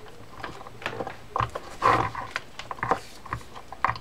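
Clicks and knocks of a Shimano Triton TTS 30 big-game lever-drag reel's side plate being lined up and seated on the reel frame. A louder rough burst comes about two seconds in.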